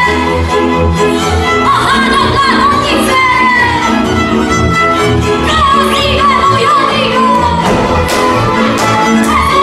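Hungarian folk string band playing a Mezőség dance tune: fiddles carry an ornamented melody over a steady pulsing double bass. A few sharp knocks from the dancers' steps come about eight seconds in.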